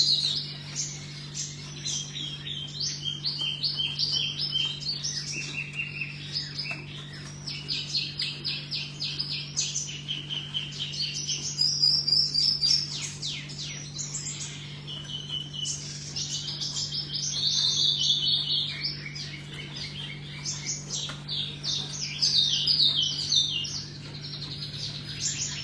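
Songbird singing continuously in fast trilled phrases of quickly repeated high notes, the phrases changing pitch one after another, over a steady low hum.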